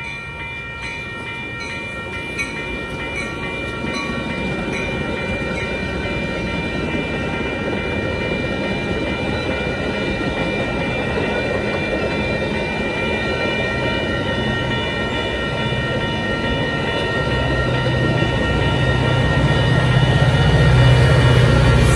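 Metra push-pull commuter train passing a grade crossing, its bilevel coaches rolling by with steady wheel-on-rail rumble. A crossing bell rings with evenly spaced strokes at first and fades out partway through. Near the end the diesel locomotive pushing at the rear comes by and its engine grows louder.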